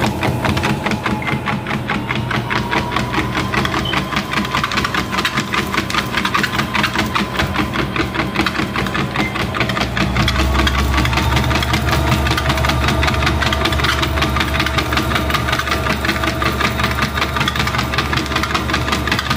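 A treadmill's motor and belt running, with a fast, even patter of the dog's paws trotting on the belt. About ten seconds in, a low hum grows stronger and the motor's whine rises slightly in pitch.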